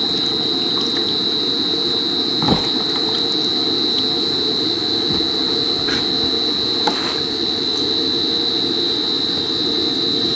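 Water boiling hard in an electric hot pot with leafy greens just added: a steady bubbling rush. A thin steady high whine runs underneath, with a few light clicks.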